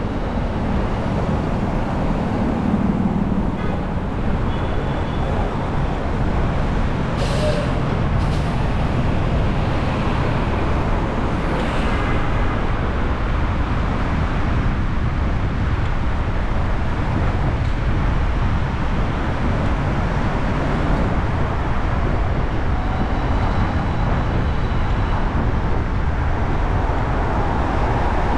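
City street traffic heard while driving: a steady rumble of engines and tyres, with two short sharp hisses about seven and eight seconds in and a fainter one a few seconds later.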